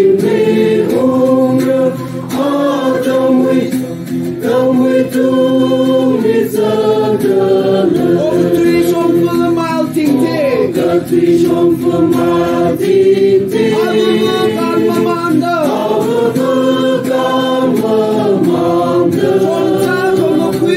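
A group of voices singing a slow hymn together, in held notes that step from one pitch to the next, with several pitches sounding at once.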